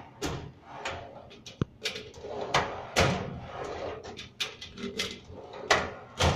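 Steel drawers of a Snap-on tool cabinet being pulled open and pushed shut while loose parts inside are handled: about a dozen sharp, irregular knocks and clunks with rustling between.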